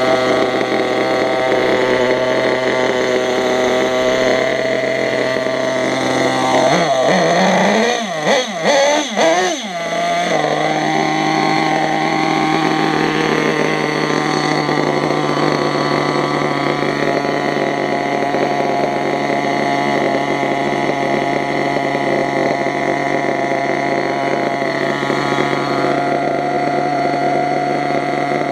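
Small two-stroke nitro engine of an RC Savage truck running through a dual exhaust. It runs at a steady pitch, wavers up and down for a few seconds about seven seconds in, then settles back to a steady run.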